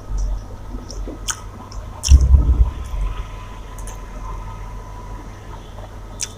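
Close-miked eating sounds: wet squishing of food being mixed and eaten, with scattered small clicks. A loud, low thud comes about two seconds in.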